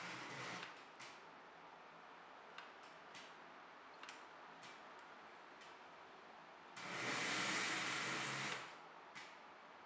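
Vintage Lionel O gauge toy train running slowly on metal track: faint scattered clicks from the wheels and couplers, then about two seconds of a louder, even whirring rush as the locomotive's motor is given more power, cutting off near the end.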